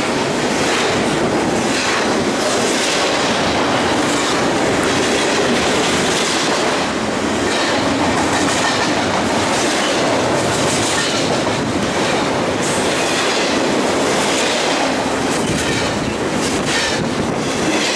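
BNSF double-stack intermodal freight train's loaded well cars rolling past: a steady, loud rumble of steel wheels on rail with repeated clicks as the wheels cross the track.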